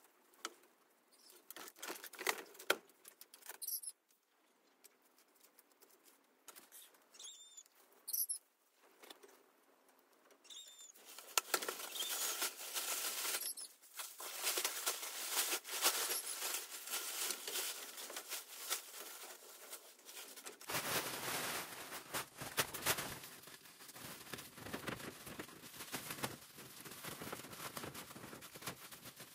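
Striped woven plastic tarp rustling, crinkling and flapping as it is unfolded and spread over a bamboo slat floor, the rustling dense and continuous from about a third of the way in. Before that, only sparse light scrapes and taps.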